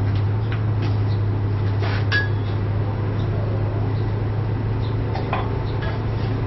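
Light metallic clinks and taps of steel stock and tools being handled, with a short ringing ping about 2 s in and another near 5 s in, over a steady low hum.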